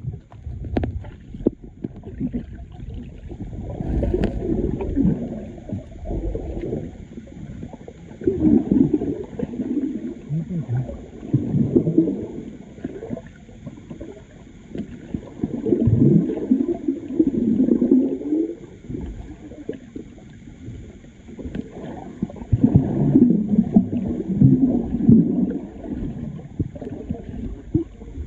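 Muffled low rumbling and gurgling of moving water, swelling and fading every few seconds.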